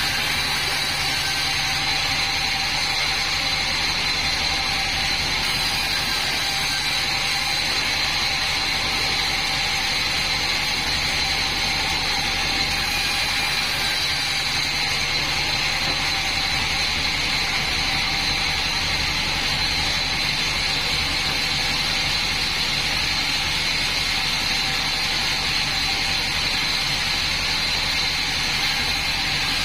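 Band sawmill running steadily, a constant machine noise with a high whine that does not change.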